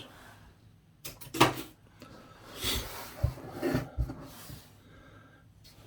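Handling noise of small hand tools on a workbench: a few separate knocks and clicks with a short rustle, as a pair of scissors is put away and needle-nose pliers are picked up.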